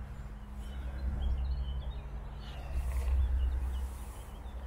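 Small birds chirping and singing in short high notes, over a low rumble on the microphone.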